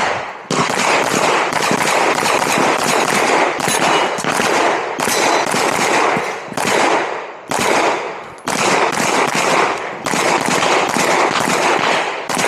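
Rapid strings of 9mm pistol shots from a Glock 47 firing a USPSA stage, with brief pauses about seven and a half and eight and a half seconds in.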